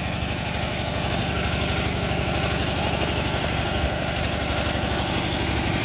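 Two-wheel walking tractor's engine running steadily, with a rapid, even pulsing beat.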